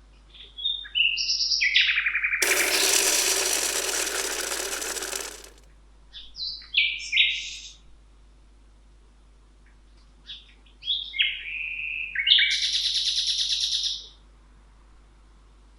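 A songbird singing: three short phrases of quick stepped and falling notes, the last ending in a rapid trill. A harsh, hissy sound lasts about three seconds after the first phrase.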